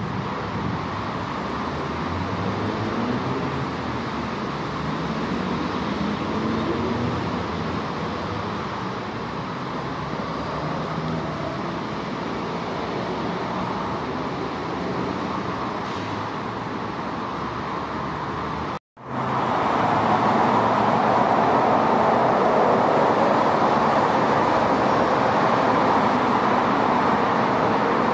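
Steady background hum of road traffic. About 19 seconds in it cuts out for an instant and comes back louder.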